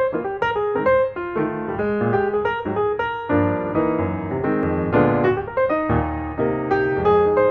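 Background piano music, a steady flow of single notes over chords.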